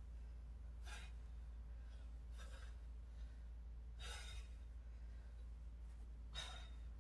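A woman breathing hard under exertion during weighted Russian twists: four short, forceful exhales, one every one and a half to two and a half seconds, over a steady low hum.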